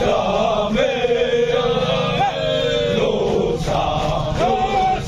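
A large group of men chanting a military running song in unison, in long held notes that shift in pitch every second or so.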